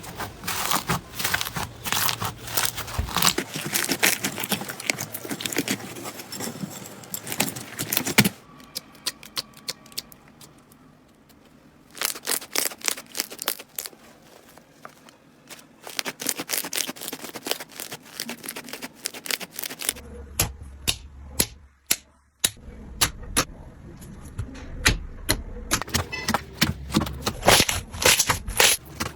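Slime being squeezed and pressed, making dense crackling and popping clicks. The texture changes abruptly several times, about 8, 12 and 20 seconds in, with quieter, sparser clicking in between.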